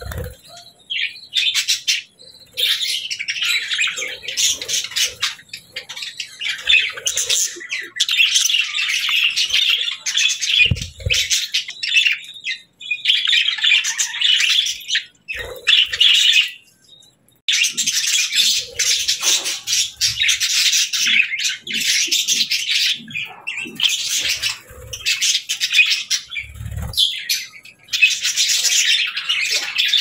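A flock of budgerigars chattering and warbling, a busy stream of chirps and squawks that breaks off only for brief pauses. A few brief low thumps come through here and there.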